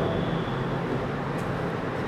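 Steady background noise with no speech: a low hum under an even hiss.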